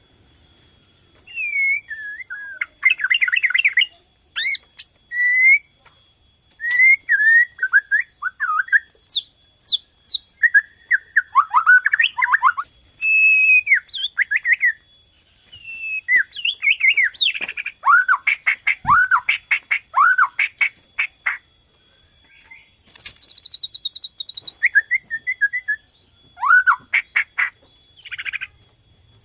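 White-rumped shama of the Bornean race (murai batu borneo) in full song: loud phrases of sliding whistles and fast rattling trills, broken by short pauses.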